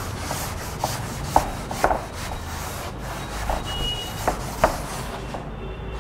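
Wooden-backed duster rubbing across a chalk blackboard in repeated wiping strokes, erasing the chalk. The rubbing stops about five seconds in.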